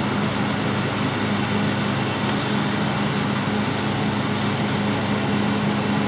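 New Holland CX820 combine harvester running steadily while cutting wheat: a constant drone of engine and threshing machinery with a steady low hum.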